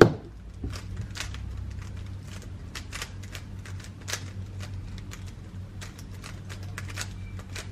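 GAN 13 MagLev 3x3 speed cube being turned by hand: quick, irregular clicks as its layers snap round, about three a second.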